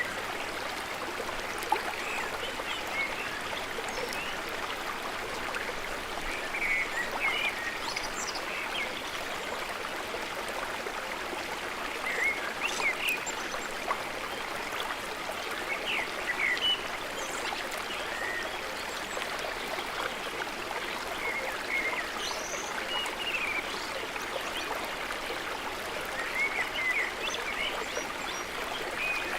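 Steady rush of a running stream, with short bird chirps scattered throughout.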